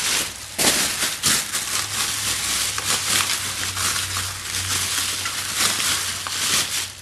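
Bubble wrap crinkling and crackling as it is pulled and handled around a boxed exhaust, a dense run of crackles.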